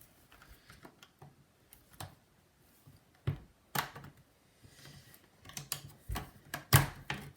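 A laptop's bottom cover being popped off and handled: irregular small clicks and knocks, with a few sharper knocks, the loudest near the end.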